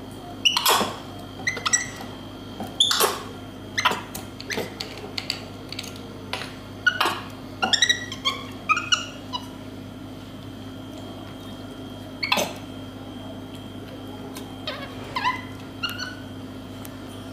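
Capuchin monkey giving short, high, squeaky chirps, singly and in quick little runs, each falling slightly in pitch, over a steady low hum.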